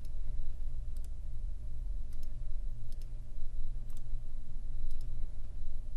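Computer mouse clicking, several single clicks about a second apart, over a steady low electrical hum.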